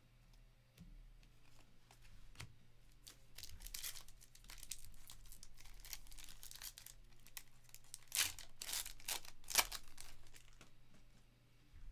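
Foil trading-card pack wrapper being torn open and crinkled by hand, loudest in a run of rips about eight to ten seconds in, with a few light taps of cards being set down on a table.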